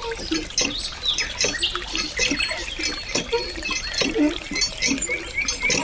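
A thin stream of water pouring from a small pipe spout and splashing into a shallow pebble-lined pool, with a steady gurgling trickle.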